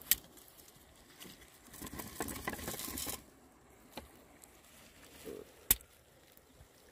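Close handling noise on sand: a few sharp knocks and a stretch of rustling and scraping as bait shells and line are worked by hand. The loudest knock comes near the end, as a stone strikes the small oyster shells used for bait.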